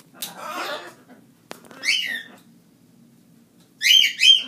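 An animal's calls: rasping cries in the first half, then two quick high chirps that rise and fall near the end.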